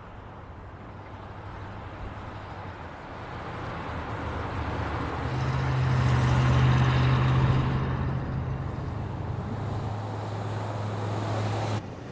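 A car engine running, its sound building up to a peak about six to seven seconds in and then easing off as its hum drops in pitch. The sound cuts off abruptly near the end.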